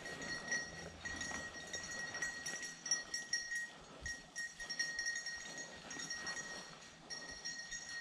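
Footsteps walking through grass and leaf litter on a woodland trail, an uneven crunching stride, with a steady high-pitched ringing tone behind it.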